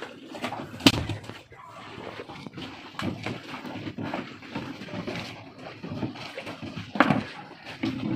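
Knocks and scraping as a caught tuna is handled on a wooden boat deck, with a sharp knock about a second in and another about seven seconds in.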